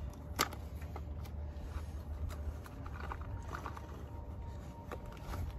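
A few faint clicks and light handling noises from gloved hands working small spark-plug parts, over a steady low rumble.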